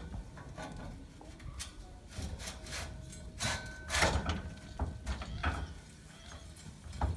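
Scaffolding parts being handled and set in place: a series of knocks and clatters, the loudest about four seconds in, with a brief scraping squeak around the middle.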